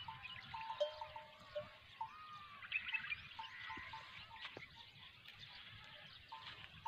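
Birds calling: a short whistled note repeated at irregular intervals throughout, with scattered chirps above it.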